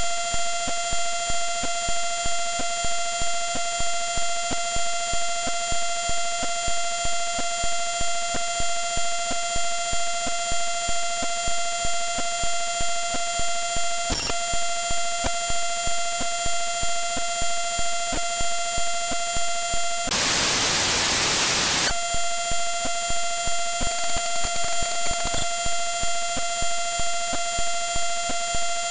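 The Audacity 1.3 Beta executable file played back as raw audio: a harsh, steady buzz of fixed high tones with many overtones, pulsing rapidly and evenly. About two-thirds of the way in, the buzz gives way to a two-second burst of plain hiss, then returns.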